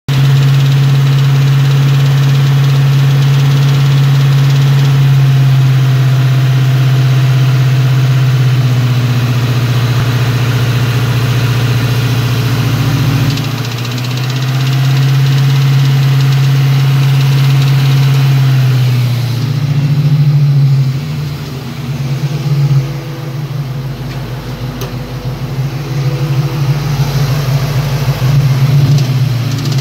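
Ford Mustang engine running at idle, heard up close under the hood as a loud, steady hum. The sound dips briefly about halfway through and turns rougher and more uneven for the last third.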